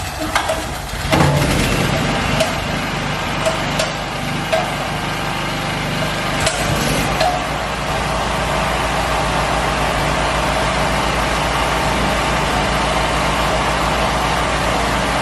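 A portable generator's small petrol engine running steadily, with several sharp knocks or clicks over roughly the first seven seconds.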